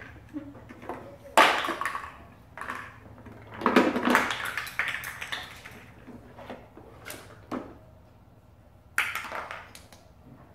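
Plastic building blocks clattering and knocking inside a plastic toy wagon as a toddler rummages in it: a sharp clatter about a second in, a longer rattle around four seconds in, and another clatter near the end.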